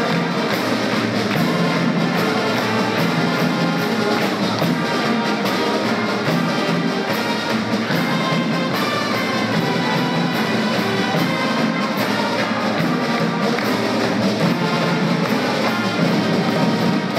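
Pep band playing brass music with drums and a steady beat.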